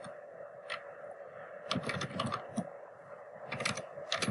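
Typing on a computer keyboard: single key clicks, then short runs of several keystrokes about two seconds in and again near the end.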